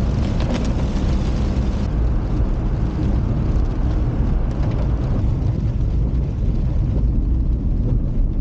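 Car driving in heavy rain: a steady low rumble of engine and tyres on the wet road, with a hiss of rain and water spray that thins out about two seconds in.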